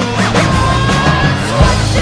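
Loud rock music with a shouted vocal over a heavy bass line and drums.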